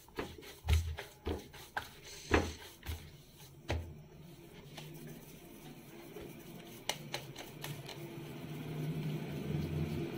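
Hands kneading maize-flour dough in a steel bowl: a run of thumps and knocks over the first four seconds, then quieter pressing and patting of the dough between the palms with a few light clicks. A faint low hum grows near the end.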